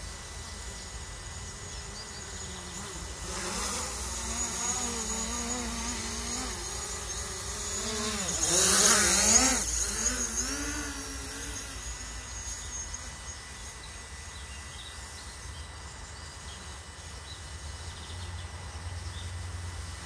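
DJI Mavic Pro quadcopter's propellers and motors buzzing as it flies, the pitch wavering up and down as it manoeuvres. It grows louder a few seconds in, is loudest about halfway through as it passes close, then fades back to a faint hum.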